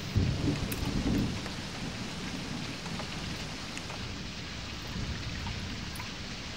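Steady rain falling on a car's windshield and body, heard from inside the car, with a louder low rumble in about the first second.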